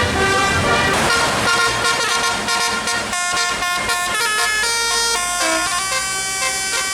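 Bus telolet horn, a multi-tone air horn, playing a quick tune of short stepped notes, several pitches at once.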